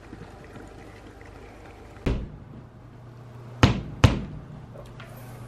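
Hammer blows fixing a metal shelf bracket to a wall: three sharp knocks, one about two seconds in and two in quick succession a second and a half later.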